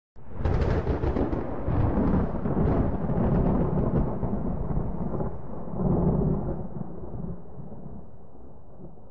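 A close thunderclap. It starts suddenly with a crackling strike, goes into a rolling, low rumble that swells again about six seconds in, and slowly dies away.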